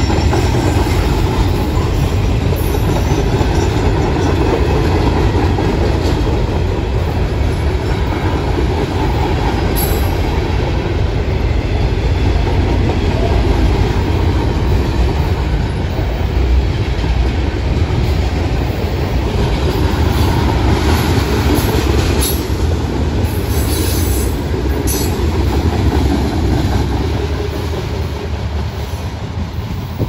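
Freight cars (gondolas, hoppers and a tank car) rolling past close by: a steady loud rumble of steel wheels on rail with clacking over the rail joints and a few brief high wheel squeals. The sound falls away near the end as the last car goes by.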